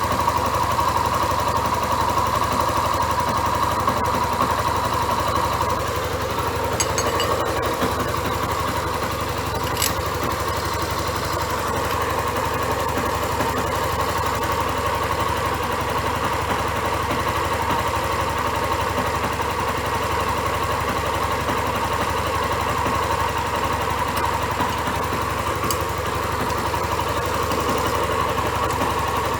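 Yamaha Crosser XTZ 150's single-cylinder four-stroke engine idling steadily, with a few light clicks.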